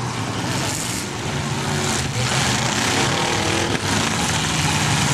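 Several demolition derby cars' engines running hard together in a loud, steady din, with crowd noise mixed in, heard through an old VHS camcorder's microphone.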